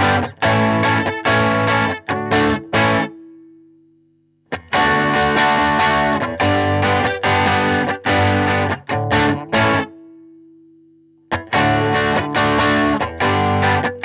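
Electric Strat-style guitar with Radioshop ID:Evolution single-coil pickups, strummed in rhythmic overdriven chords through an amp. Twice, about three seconds in and again about ten seconds in, a chord is left ringing and fades away before the strumming starts again.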